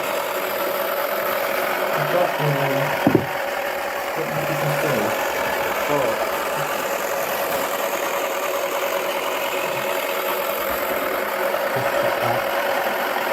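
Small electric motor of a toy washing machine running steadily with a constant hum, with a single knock about three seconds in.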